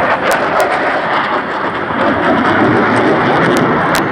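Jet roar of SAAB JAS 39 Gripen fighters in flight, each driven by a single Volvo RM12 turbofan: a loud, steady rushing noise, with a few brief sharp clicks.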